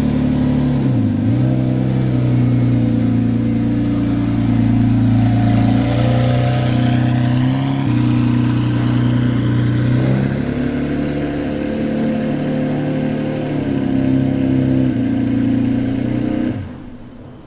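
Bugatti EB110 GT's quad-turbocharged 3.5-litre V12 running at a steady idle through its exhaust, with small dips and shifts in pitch. The sound cuts off abruptly near the end.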